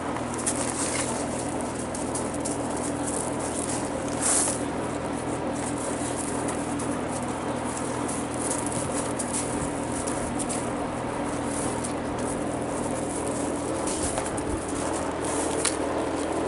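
Australian Shepherd puppies scuffling and tugging at a rope toy on gravel: scattered scratches and clicks over a steady low hum, with a louder scuffle about four seconds in.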